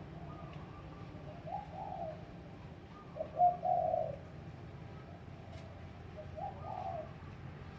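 Pigeon or dove cooing: short low coos repeated about three times, a couple of seconds apart, over a steady low hum.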